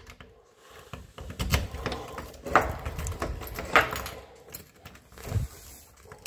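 A key on a short chain being worked in a door lock: metal rattling and jingling of the keychain, with a few separate sharp clicks as the lock is turned.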